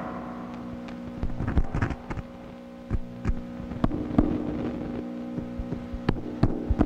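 Experimental noise music: a steady low droning hum with a few held tones, broken by scattered sharp clicks and crackles.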